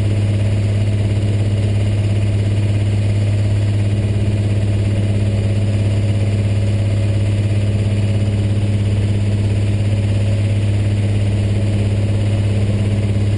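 First-generation Cummins 5.9 12-valve turbo diesel with a P-pump, idling steadily, heard from inside the cab with a constant low hum.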